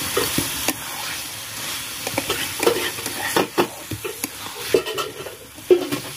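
Marinated chicken pieces sizzling in a black kadai while a metal spatula stirs them, scraping and knocking against the pan at irregular moments over a steady frying hiss.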